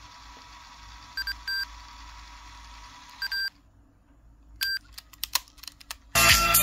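Sony Walkman cassette player giving short electronic beeps at its button presses while the tape winds back in track search, then a few mechanism clicks as it switches over to play. Music from the tape starts loudly about six seconds in.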